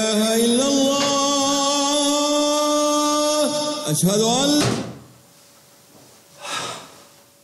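A muezzin's call to prayer: a single male voice singing long, held, ornamented notes, as if from a clock radio. It ends on an upward slide and cuts off abruptly about four and a half seconds in. A short noise follows about two seconds later.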